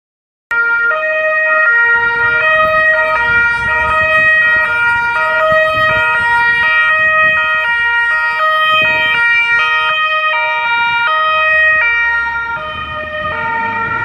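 Two-tone police siren of Carabinieri patrol cars, alternating steadily between a high and a low note. It starts abruptly about half a second in.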